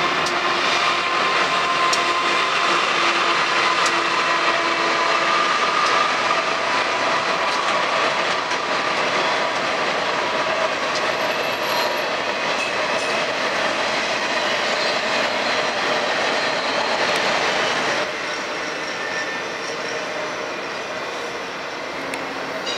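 Freight train of double-stacked intermodal container cars passing, its wheels rolling over the rails with several steady squealing tones above the rumble. It turns quieter about three-quarters of the way through.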